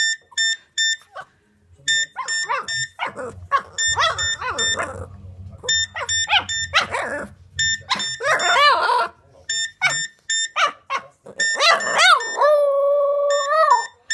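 A cordless phone handset rings with a rapid, repeating electronic beep, while a Boston Terrier yelps and whines along with it in rising and falling cries. Near the end she holds one long, steady howl.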